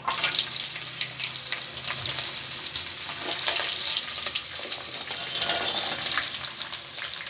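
Chopped gourd pieces landing in hot oil with mustard seeds in an aluminium pot, setting off a steady sizzling hiss that starts suddenly, with scattered small pops and clicks as more pieces go in.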